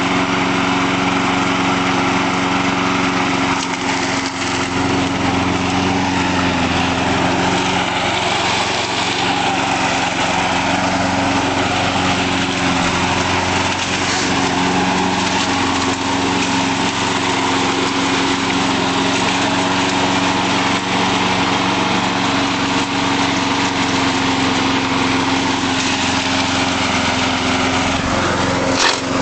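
Small single-cylinder lawnmower engine running steadily on straight ethanol, holding an even pitch.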